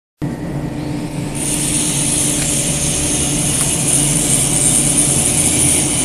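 Electric motors of a double-end cut-off saw for wooden pallet boards running with a steady hum. A high-pitched whine joins about a second in and holds.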